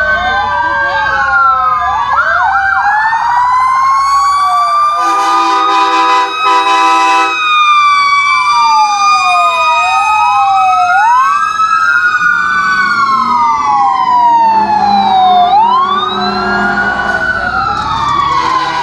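Several fire engine sirens wailing at once, their pitches rising and falling out of step with each other. A steady horn blast sounds for about two seconds a quarter of the way in.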